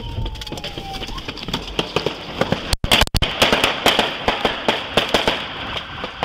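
Gunfire: a long run of rapid shots, crowded closest together from about two seconds in to past five, picked up by a police body-worn camera's microphone.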